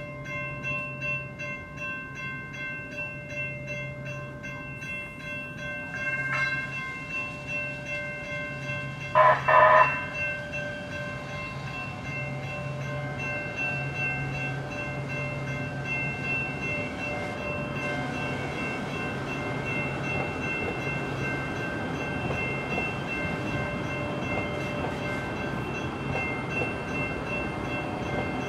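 Electronic railroad-crossing bells ringing steadily at a pedestrian crossing. About nine seconds in, a loud horn sounds for about a second. After that the noise of a Los Angeles Metro Expo Line light rail train builds as it approaches and passes through the crossing.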